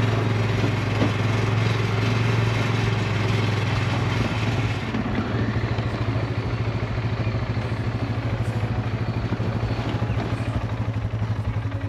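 A vehicle engine running steadily with a strong low hum; about five seconds in it settles into an even pulsing beat and the higher hiss drops away.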